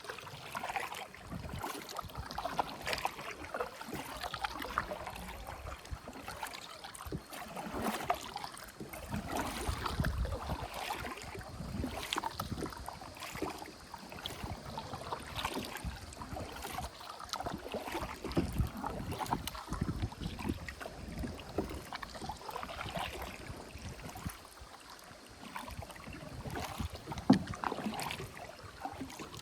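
Kayak paddle strokes dipping and splashing in the water, one after another at an uneven pace.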